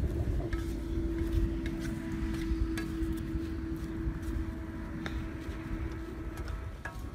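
Wooden spatula stirring food in a frying pan on a portable gas stove, with scattered light taps and scrapes against the pan. Wind rumbles on the microphone, and a steady drone runs underneath, stopping near the end.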